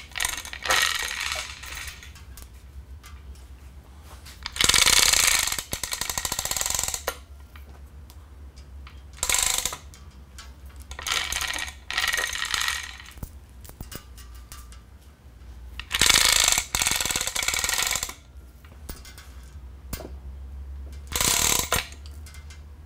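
Manual chain hoist being hauled by its hand chain to raise a lathe bed: the chain clatters through the hoist in about six separate spells of half a second to two seconds, between pauses.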